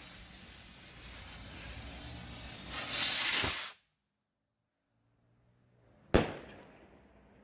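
Firework rocket's fuse hissing steadily, then a louder hissing rush for about a second as the rocket motor lifts off, cutting off suddenly. About six seconds in, a single sharp bang as the rocket bursts, with a short fading tail.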